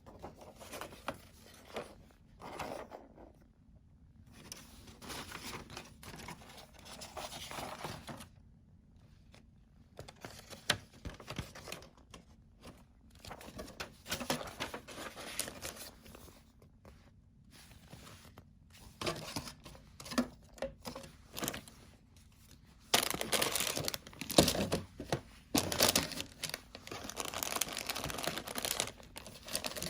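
Plastic packaging of a model kit being handled and torn open: intermittent rustling and tearing, becoming dense, louder crinkling near the end.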